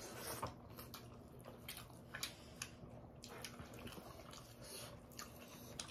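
Faint wet eating sounds: scattered lip smacks and chewing clicks as chicken and rice are eaten by hand.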